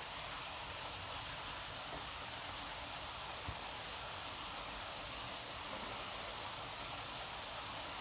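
Steady, even outdoor background hiss with no distinct events.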